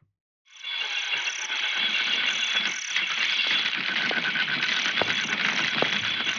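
Night-time insect chorus, crickets chirring densely and steadily with a high chirp that pulses a couple of times a second and scattered clicks, starting about half a second in after a moment of silence.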